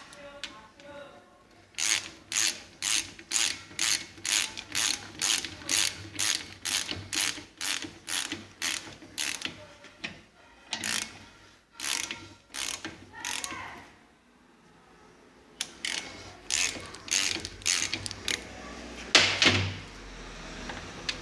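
Hand ratchet wrench being worked in steady strokes, about two and a half clicks a second, while a fitting on a hydraulic steering box is tightened. Near the middle the strokes turn irregular and come with short pauses, and one louder click comes near the end.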